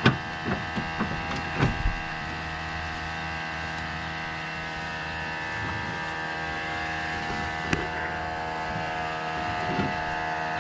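Steady mechanical hum made up of many even tones, with a few sharp metallic clicks and knocks in the first two seconds and once more later, as a wire rope and a hand-lever winch are handled and rigged.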